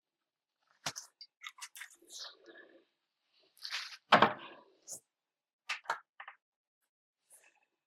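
Kitchen handling sounds: scattered light clicks and taps of containers and utensils, with one louder knock about four seconds in.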